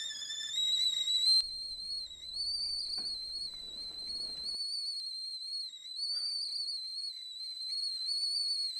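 Stovetop kettle whistling at the boil: one high, steady whistle that wavers slightly in pitch.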